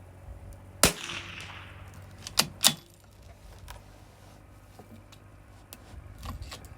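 A single shot from a CZ 457 bolt-action .22 LR rifle: one sharp crack about a second in with a short fading echo. About a second and a half later come two sharp metallic clicks as the bolt is worked.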